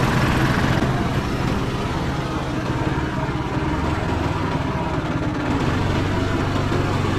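Go-kart engine running steadily under throttle as the kart drives around the track.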